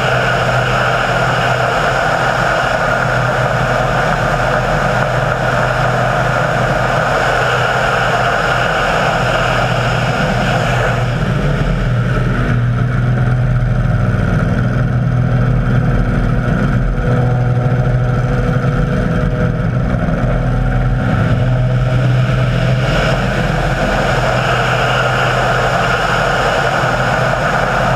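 Radio-controlled model aircraft's piston engine running steadily in flight. Its tone shifts about eleven seconds in, with a lower, smoother note, and changes back about twelve seconds later.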